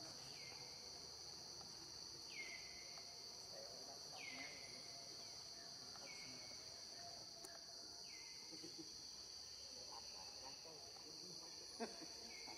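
Faint, steady high-pitched insect drone, like crickets. A short, falling call repeats about every two seconds over it, and there is a single sharp click near the end.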